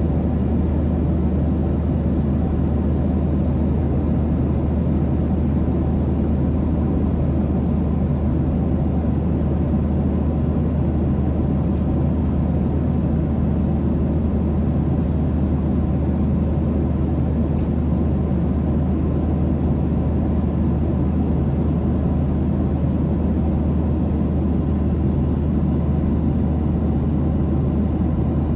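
Steady low drone of a jet airliner's cabin at cruising altitude: engine and airflow noise heard from inside the cabin, unchanging throughout.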